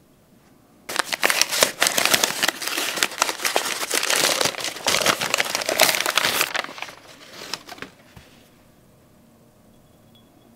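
Thin tissue paper crinkling and rustling as it is unwrapped and crumpled off a porcelain pour-over dripper. The dense crinkling starts about a second in and dies away by about eight seconds.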